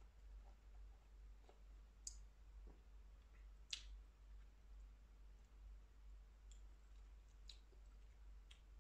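Near silence: room tone with a steady low hum and a few faint, short clicks, the clearest about four seconds in.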